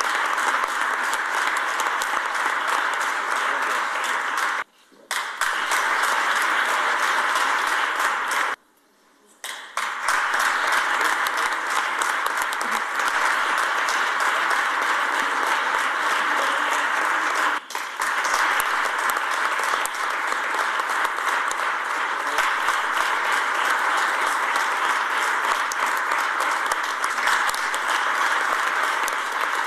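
Audience applauding steadily, a dense crackle of many hands clapping. It cuts out briefly about five seconds in and again about nine seconds in.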